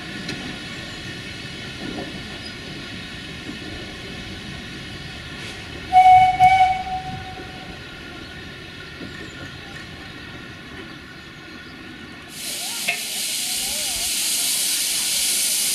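Steam locomotive (1903 Borsig tank engine): a short whistle in two quick pulses about six seconds in, then from about twelve seconds a loud, steady hiss of steam blowing from the open cylinder drain cocks.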